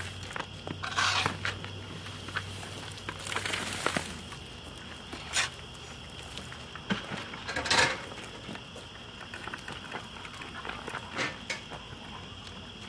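Wood chips being scooped and scraped into plastic buckets with a pitchfork and by hand: irregular crunching scrapes, a longer one near the middle. A steady faint high tone runs underneath.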